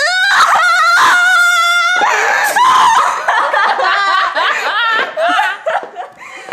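Two girls laughing hard. It opens with a high-pitched squeal of laughter held for about two seconds, then goes into breathless, broken giggling that fades a little near the end.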